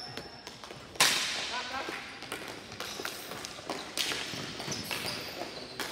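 Ball hockey play: a run of sharp cracks from sticks slapping the ball and the ball hitting the boards, the loudest about a second in, with faint players' voices under it.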